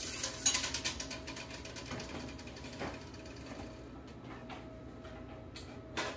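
A rapid ratcheting rattle of clicks for about a second and a half, then a few scattered clicks and a couple of sharp knocks near the end: a kitchen drawer run open on its slides and a knife fetched from it.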